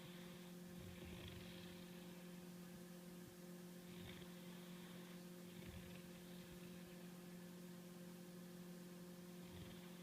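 Great Dane snoring faintly, slow airy breaths with a soft low rasp coming about every four seconds, over a steady electrical hum.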